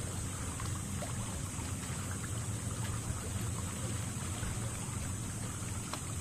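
Seashore ambience: small waves lapping on rocks and sand over a low steady hum, with faint scattered clicks.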